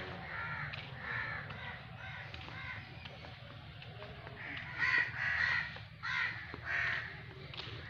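Crows cawing over and over, short harsh calls following one another, loudest about two-thirds of the way through.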